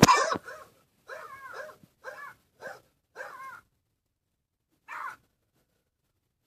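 A pet animal's cries: one loud, sharp yelp at the start, then five short calls that waver up and down in pitch, spaced out over a few seconds.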